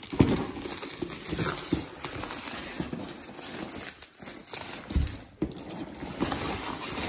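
Crinkling and tearing of a plastic bubble-lined mailer bag being pulled open by hand and off a cardboard box, with irregular knocks and thumps as the box is handled.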